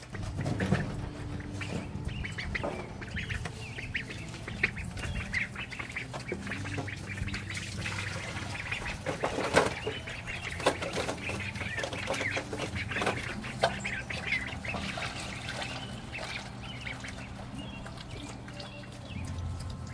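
Ducks calling over and over with short, high calls while being fed, with scattered knocks and clatter among them.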